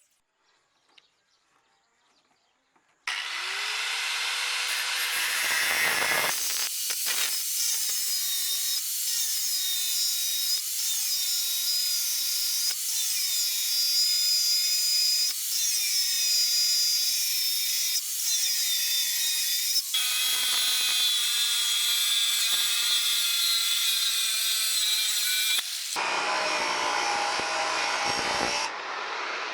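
Electric grinder working a rusted leaf-spring steel blank, starting about three seconds in. Its high motor whine sags and recovers every couple of seconds as it bites into the metal, and the tone changes abruptly twice in the second half.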